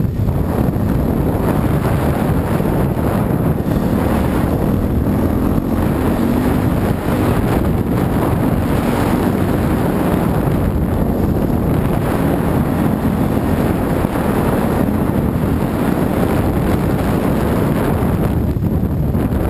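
Dirt bike engine running under way, its pitch rising and falling with the throttle, with wind buffeting the microphone.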